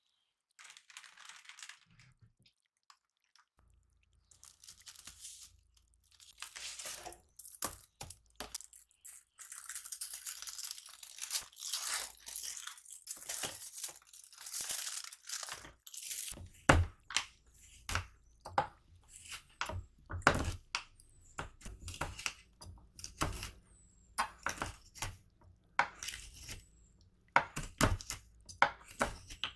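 Aluminium foil crinkling and tearing as it is peeled off a bar of chocolate, then, about halfway through, a chef's knife chopping the chocolate bar on a wooden cutting board in a steady run of sharp chops.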